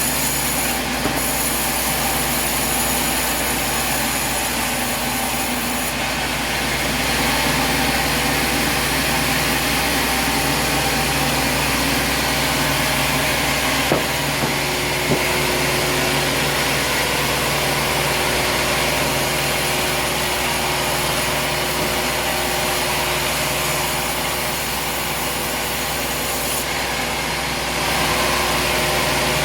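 Engine-driven sawmill running steadily as its blade cuts through a log, with two sharp clicks about halfway through.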